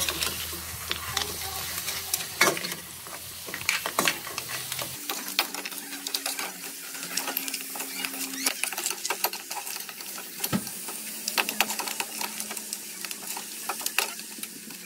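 Metal spatula scraping and clinking against a metal wok as crab pieces in thick sauce are stirred and turned, with the food sizzling in the hot pan.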